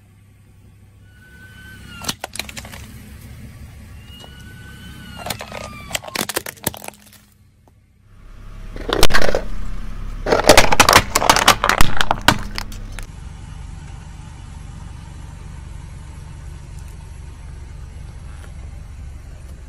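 A car tyre rolling slowly over small objects and crushing them: a few sharp cracks and short squeaks at first, then a dense, loud run of crunching and cracking about halfway through, followed by the car's steady low rumble with faint crackling.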